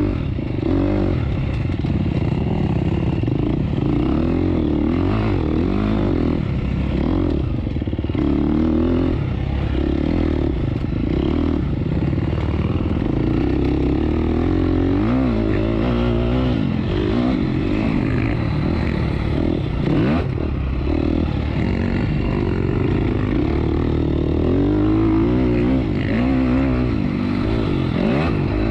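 Off-road dirt bike engine ridden continuously, its pitch rising and falling again and again as the throttle is opened and closed.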